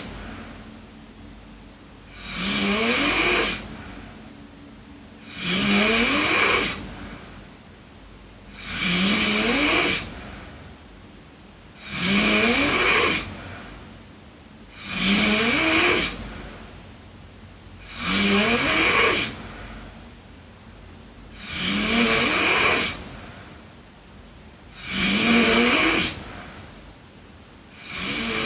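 A girl snoring in her sleep, a steady rhythm of about nine snores, one every three seconds or so. Each snore lasts about a second and rises in pitch.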